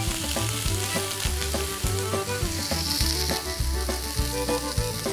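Chicken and beef shashlik skewers sizzling steadily on a very hot char grill pan. Background music with a steady beat plays over it.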